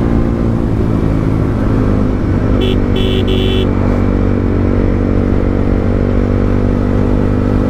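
Motorcycle engine running steadily while riding. Three quick horn beeps sound about two and a half seconds in.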